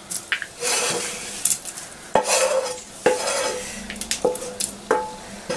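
Fried onions scraped out of a tilted pan into a saucepan of simmering stock: a scraping hiss, broken by about five ringing metal clanks from the second second on.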